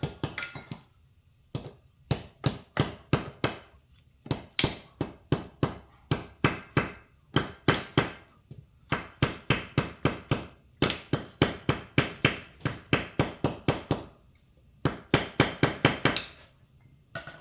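Hammer blows driving a new bushing into an ATV's A-arm: quick, steady strikes of about three a second, in several runs broken by short pauses.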